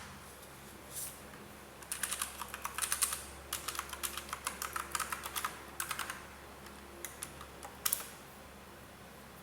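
Aula F2088 mechanical keyboard with brown switches being typed on: rapid runs of key clicks from about two to six seconds in, then a few scattered keystrokes near the end.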